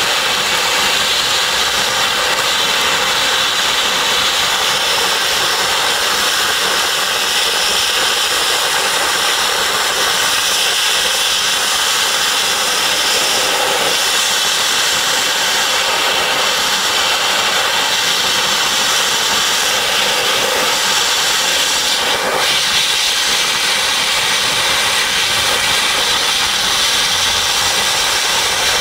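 Dry ice blaster jetting compressed air and dry ice pellets against bronze metalwork to strip old paint: a loud, steady hiss that holds unbroken throughout.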